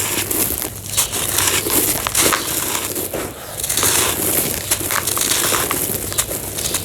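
Homemade dried cement being crushed and crumbled, a gritty crunching made of many small snaps and crackles that keeps going without a break.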